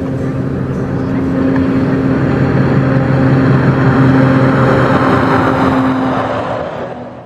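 Mercedes-Benz Actros truck pulling loaded interlink trailers as it drives past: a steady diesel engine drone with road noise, growing louder to a peak about four seconds in, then fading near the end.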